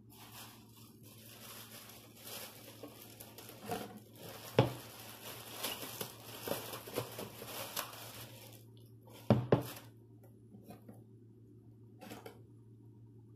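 Thin clear plastic crinkling and rustling as it is stretched over a glass mixing bowl of dough, with a sharp knock about four and a half seconds in. The crinkling stops near nine seconds, followed by two more loud knocks in quick succession and then a few light clicks.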